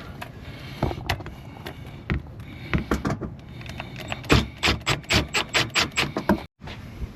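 Sharp clicks and knocks from hand work fitting a plastic fender flare and its screws into place, turning into a quick, even run of about five clicks a second for a couple of seconds. The sound cuts off suddenly near the end.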